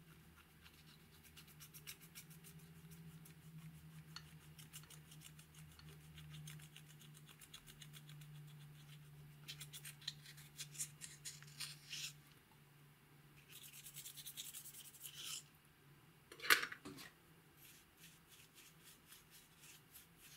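A small tool scraping and digging pressed eyeshadow out of its compact pan, crumbling the powder: rapid fine scratching with two stretches of louder scraping, then a single sharp knock.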